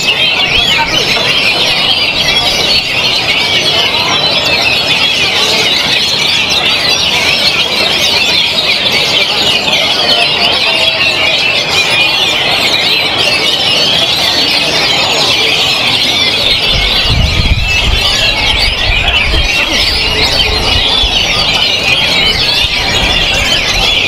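Many caged oriental magpie-robins singing at once in a dense, continuous chorus of fast, overlapping whistles and chatter. A low rumble joins about two-thirds of the way through.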